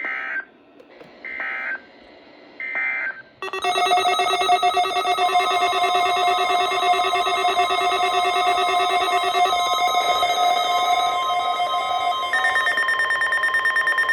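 Emergency alert broadcast data and alarm: three short screeching bursts of digital header data, each about half a second long, then a loud steady alert tone of several pitches at once. The tone shifts pitch twice, about six and nine seconds after it starts, and cuts off suddenly.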